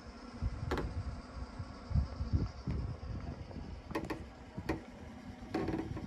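Gusty wind buffeting the microphone as an uneven low rumble, with a few sharp clicks scattered through it: one about a second in, a quick pair about four seconds in, and more near the end.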